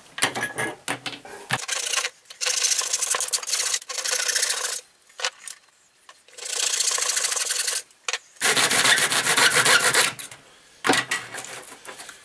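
Hand file rasping on a yellow RC rotor blade clamped in a bench vise, in spells of steady back-and-forth strokes a second or two long, with short pauses between.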